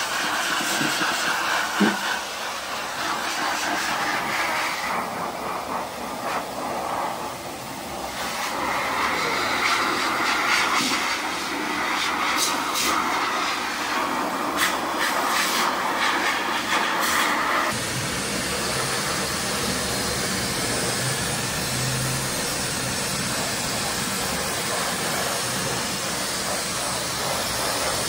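Pet blower (grooming dryer) blowing air through its hose and nozzle onto a wet cat's fur after a bath: a steady rush of air whose tone shifts as the nozzle is moved, changing suddenly about two-thirds of the way in.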